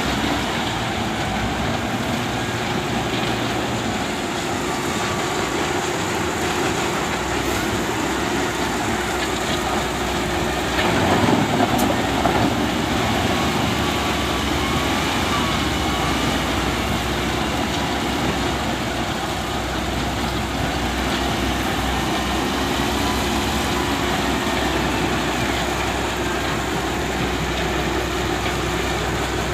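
Heavy excavator's diesel engine running steadily under hydraulic work, swelling louder for a couple of seconds about eleven seconds in.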